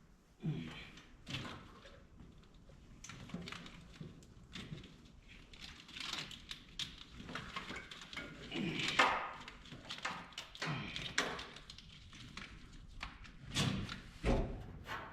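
Irregular clicks, knocks and rustling of hands handling wiring-harness connectors and loose wiring, with a few louder thunks about half a second in, around nine seconds in and near the end.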